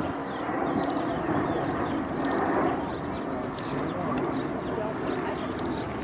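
A small bird gives four short, very high chirps, each a quick run of notes, spaced a second or two apart, over a steady background hubbub.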